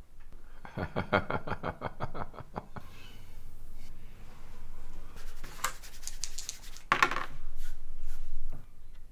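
Dice rattling and clattering, with game pieces clicking on a Monopoly board: a quick run of rattling clicks for about two seconds, then scattered clicks and a louder clatter about seven seconds in.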